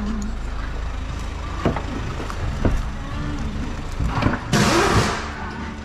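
A car engine idling with a steady low hum. A few light clicks come through, and about four and a half seconds in there is a louder clatter as a car door is pulled open by its outside handle.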